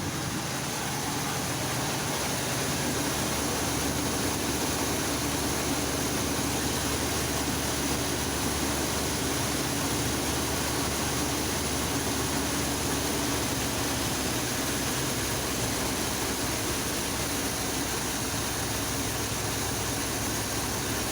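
1985 Chevy C10 pickup's engine idling steadily on a newly fitted carburetor, its idle set too high and being turned down.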